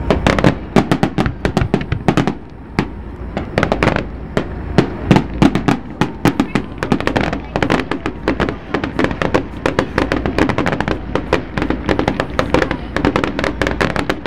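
Fireworks going off in a dense, rapid barrage of bangs and crackles, several reports a second without a break.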